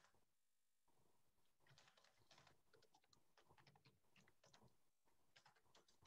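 Faint typing on a computer keyboard: irregular runs of key clicks, after a brief pause near the start.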